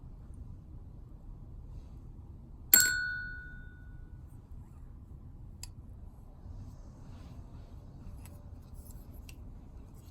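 A small metal part clinks once against a hard surface about three seconds in and rings briefly, followed by a few faint small clicks and light handling noise as reel bearings and a bearing puller tool are worked on.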